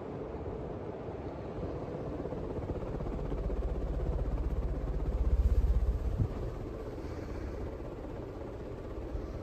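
Casablanca Commodore Vanderbilt ceiling fan running on high: a steady motor hum with the whoosh of the four blades moving air. The low rush of air swells for a few seconds in the middle, and there is a short knock about six seconds in.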